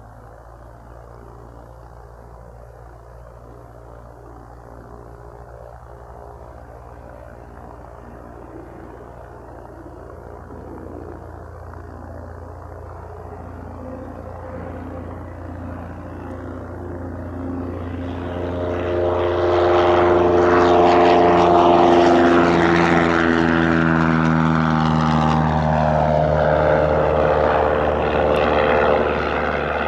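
Cessna 172S single-engine propeller plane at takeoff power, growing louder over about twenty seconds as it comes closer. It is loudest a little past the middle, and its pitch falls as it goes by.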